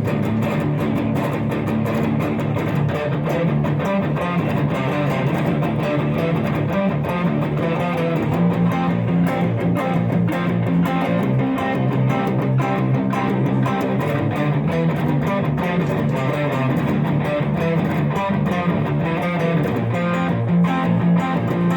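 Gibson Les Paul Custom electric guitar played through an amplifier: a continuous run of picked notes and chords at a steady level.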